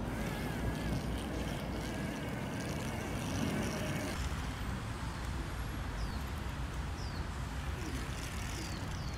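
Small 9–12 V DC gear motors of a tracked robot tank chassis driving, a faint wavering whine in the first few seconds over a steady low rumble. In the second half, short high falling chirps come about once a second.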